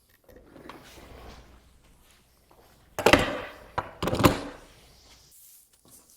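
Two loud wooden thunks about a second apart, a little past halfway, as wooden workpieces are handled and set down on a workbench, with faint handling and rubbing noise before them and a few light clicks near the end.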